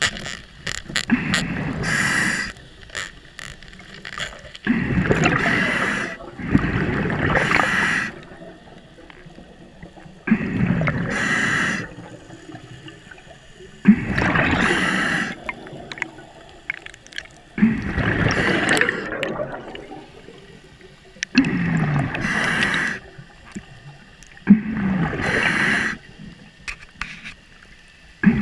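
A scuba diver breathing through a regulator underwater: a loud bubbling, gurgling rush of breath comes back about every three to four seconds, with quieter hiss between breaths.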